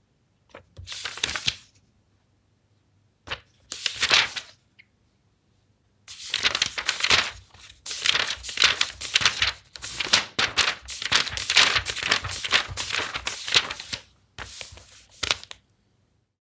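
Paper pages of a book being turned: two single page turns about a second and four seconds in, then a long run of quick page flipping from about six seconds to fourteen, and one last turn near the end.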